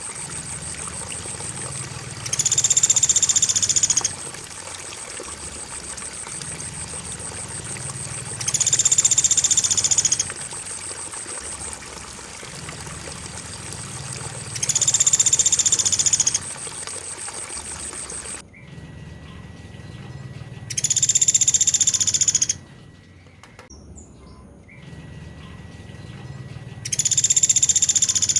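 A looped recording of a pelatuk beras bird call: a loud, high call of about two seconds, repeating every six seconds, five times. Under it runs a steady bed of running water, with a continuous high cricket chirr that stops about two-thirds of the way through.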